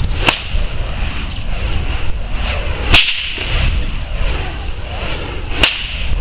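Fire whip cracking three times, about two and a half seconds apart, with the middle crack the loudest.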